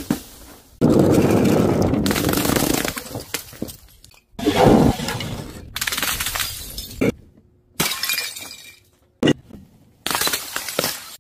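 Glass bottles dropped from a height smash on paving tiles in about five separate crashes, each a sudden shatter that rings on briefly as the glass scatters.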